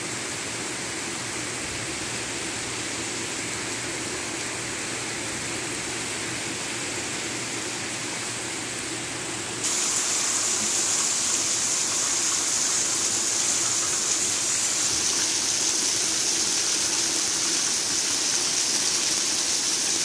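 Heavy rain pouring down in a steady, even hiss. It turns suddenly louder about halfway through.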